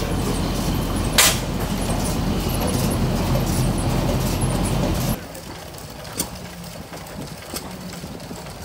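Antique hit-and-miss gas engines running with a loud, low, rhythmic noise and one sharp bang about a second in. About five seconds in the engine noise stops abruptly, leaving a much quieter background with a faint hum and scattered clicks.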